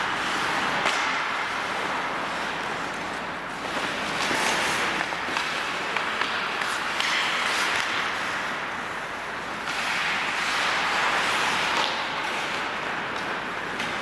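Ice hockey skate blades scraping and hissing on the rink ice, swelling and fading in waves as the players skate, with a few sharp clacks of sticks and puck.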